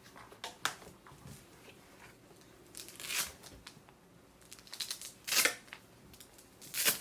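Hands handling tricycle parts and packaging: a few short rustles and scrapes, the loudest around the middle and at the end.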